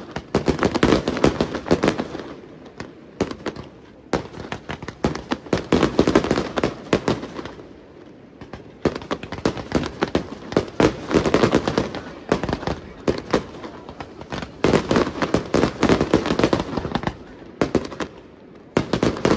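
Fireworks display: dense volleys of rapid bangs and crackling, coming in waves of two to four seconds with brief lulls between them.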